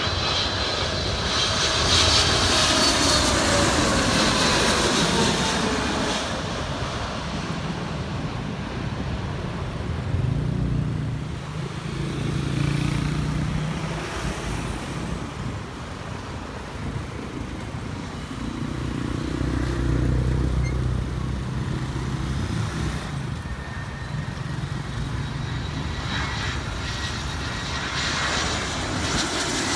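Jet engines of a twin-engine widebody airliner on low approach passing overhead, their whine falling in pitch as it goes by. In the middle a lower engine hum swells and fades twice. Near the end the jet noise of a second airliner builds as it comes in.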